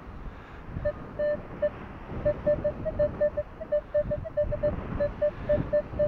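Minelab Equinox 800 metal detector giving short beeps of one pitch, a few at first and then about four or five a second, as the coil passes over a buried target. Wind buffets the microphone underneath.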